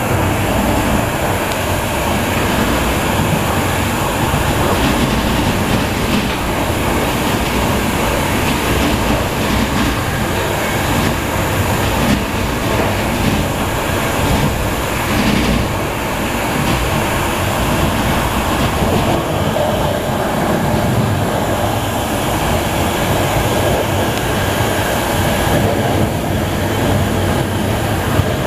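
ÖBB Class 2016 'Hercules' (Siemens ER20) diesel-electric locomotive, with its 16-cylinder MTU engine, running steadily as it pushes the train, together with wheel-on-rail noise. Heard from inside the coach coupled directly to it.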